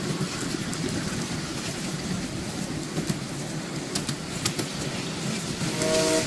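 Riding on a miniature railway train: the steady running rumble of the wheels on the track, with a few sharp clicks along the way. Near the end comes a short, steady pitched tone.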